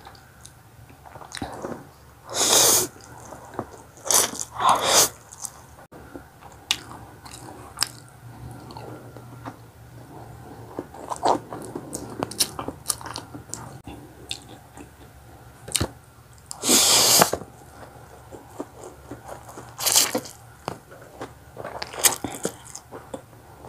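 Close-up eating of instant pancit canton noodles: several loud slurps of noodles, with chewing and mouth smacking and small clicks between them.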